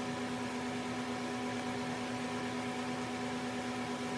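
Steady mechanical hum at a few fixed pitches, unchanging throughout.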